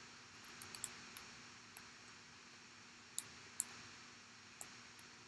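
Faint, scattered clicks and crinkles from a plastic snack packet being handled in the hands, over a low steady room hiss.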